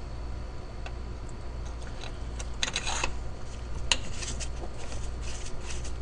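Small steel bolts clinking and clicking as they are handled and started into an engine timing cover, with a short cluster of metallic clinks about three seconds in and a sharper click just after, over a steady low hum.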